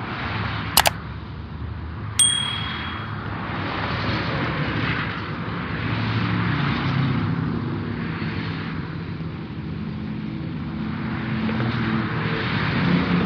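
Steady road and engine noise from a moving vehicle. There is a sharp click about a second in, then another click with a brief high ringing ding about two seconds in.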